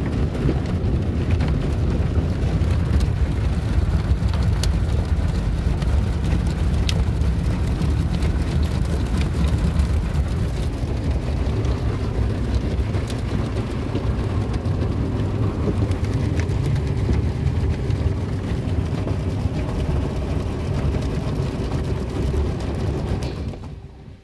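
Soft-cloth car wash heard from inside the car: cloth wash strips and water spray rubbing and pattering on the car's body, a loud, steady low rumble with many small patters. It drops away sharply about a second before the end, leaving a faint steady hum.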